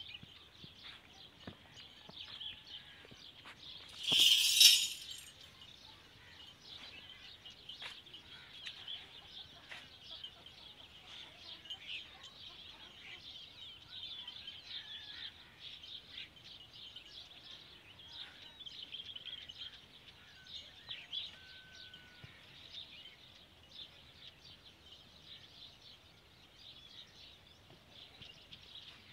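Many small birds chirping steadily, a dense twittering chorus with no engine running. About four seconds in, a loud rushing noise burst lasts about a second.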